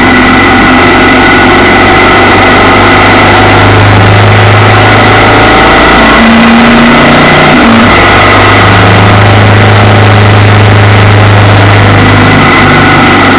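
Motorcycle engine running at road speed, with loud wind rushing over the bike-mounted microphone. The steady low engine note drops away for about two seconds in the middle, then comes back.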